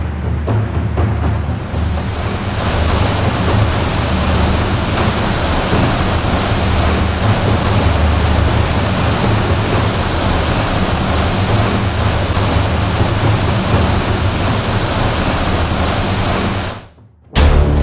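Steady rush of wind and water noise with a low drone underneath, cutting off abruptly near the end.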